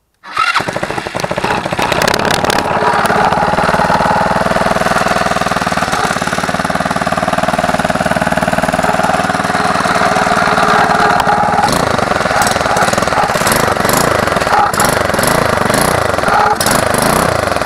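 Yerf-Dog go-kart's small engine running loud through a box muffler that has too little steel wool packed in it. About twelve seconds in, its pitch starts to rise and fall.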